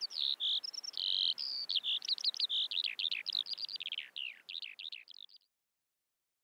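Small birds singing, a quick run of short high chirps and sharply down-sliding notes, which thins out and stops about five seconds in.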